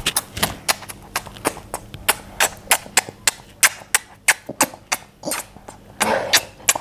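A small child giving quick, repeated smacking kisses on a cheek, about three or four sharp lip smacks a second.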